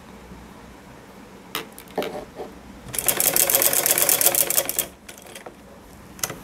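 Domestic sewing machine stitching a short run of rapid, even needle strokes about three seconds in, lasting under two seconds, sewing down a folded fabric edge. A few light clicks come before it and one more near the end.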